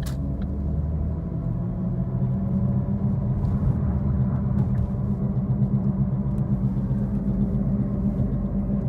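Low, steady droning rumble inside a moving 2013 Ford Focus's cabin, slowly getting a little louder over the first few seconds: the drone of a worn left-front wheel bearing.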